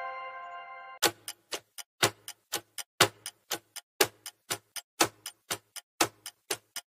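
A ringing chime dies away, then about a second in a countdown clock ticking effect starts. It ticks about four times a second, with a louder tick on each second, marking the time left to answer.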